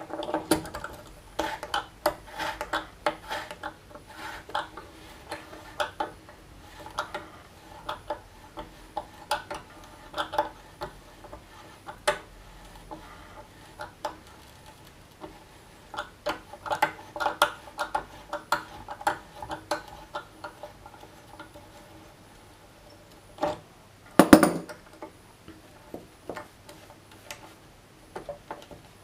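Hand tap in a T-handle tap wrench being worked back and forth to thread a binding-insert hole in a ski through a metal centering guide: a run of small metallic clicks and clinks with a faint ring, coming in clusters. One louder metal clank comes late on.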